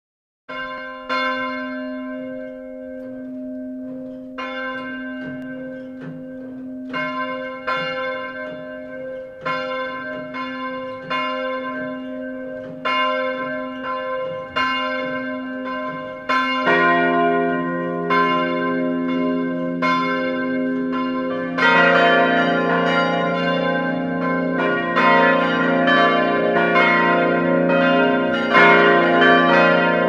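Church bells ringing: single strokes every second or two at first, each ringing on with a low hum, then deeper bells joining about halfway and more again later, building into a fuller, louder peal.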